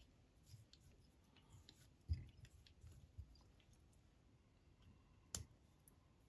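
Faint handling sounds of fly-tying tools and fingers at the vise: a few soft bumps around two to three seconds in, then one sharp click about five seconds in.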